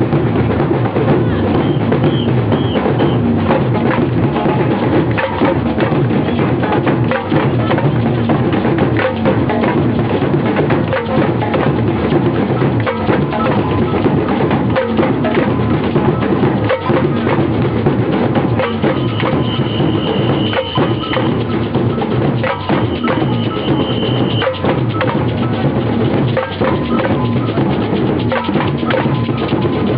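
Procession drum band playing, a dense, loud, steady beat of drums and sharp clicking strikes. A high held tone sounds twice in the second half.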